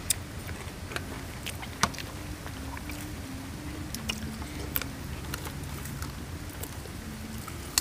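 Low steady drone of a distant motor whose pitch shifts in small steps, with scattered crisp clicks of raw vegetables being bitten and chewed.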